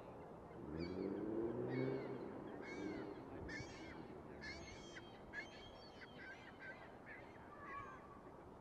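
Geese honking in a string of short calls. Early on, a louder, lower drawn-out call rises in pitch and holds for about two seconds.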